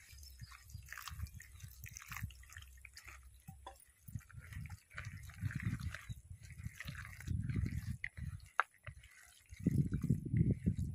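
A hand squeezing and mixing a wet batter of broken instant noodles, flour and a little water in a plastic bowl, in irregular squishes that grow louder near the end.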